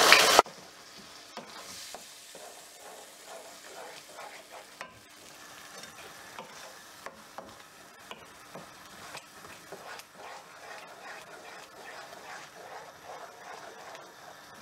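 Wooden spoon stirring cooked chana dal into an onion-tomato masala in a non-stick wok, with soft scrapes and small clicks against the pan over a faint sizzle. A brief louder hiss at the very start cuts off abruptly.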